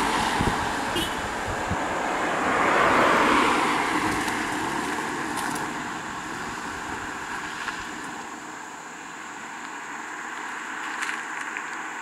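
Cars passing on a paved road, with tyre and engine noise swelling and fading, loudest about three seconds in, then dying down to a quieter steady road noise.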